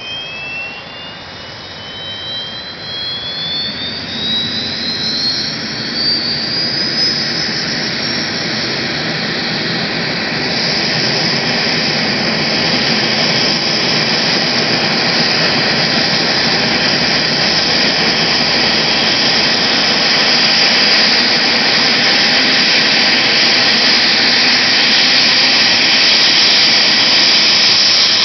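AgustaWestland AW139 twin-turbine helicopter running up on the pad before take-off: a turbine whine rises in pitch over the first several seconds as the engines spool up, and the rotor and engine noise grows steadily louder.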